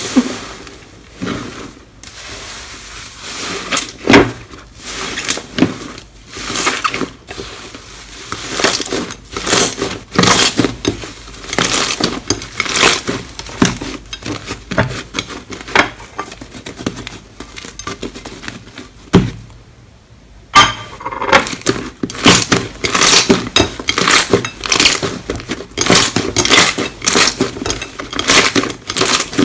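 Slime being pressed and squeezed by hand, giving quick, irregular crackles, clicks and pops, with a short pause about twenty seconds in before the crackling starts again.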